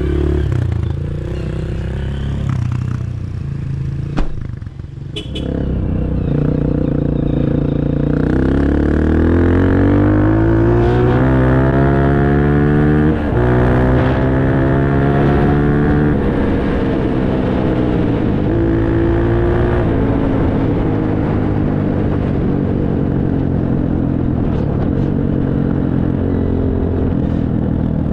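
Dirt bike engine running and accelerating. Its pitch climbs twice in the middle, with a short break between the climbs that sounds like a gear change, then it runs more steadily. A single sharp click comes about four seconds in.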